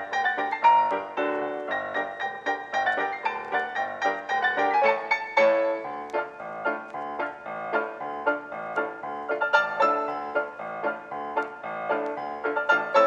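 Background piano music: a quick, continuous run of notes.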